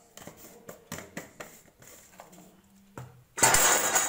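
Light clinks and taps of steel dishes and a spoon, then a loud scrape lasting under a second near the end.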